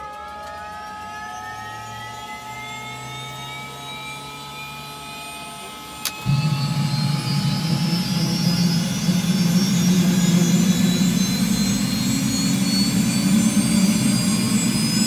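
Helicopter turbine engine starting. A whine rises steadily as the starter spins the engine up. About six seconds in there is a click, and then a sudden loud roar as the engine lights off, while the high whine keeps climbing as it spools up.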